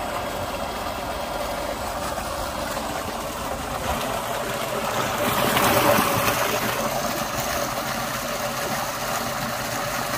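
Tubewell pump discharging: water gushing steadily from the outlet pipe into a concrete tank, a rushing that grows louder about five seconds in.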